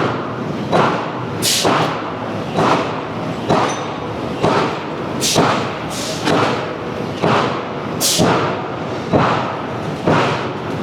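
Refractory brick-pressing machinery thudding in a steady rhythm, about one stroke a second, with a few short bursts of air hiss between strokes.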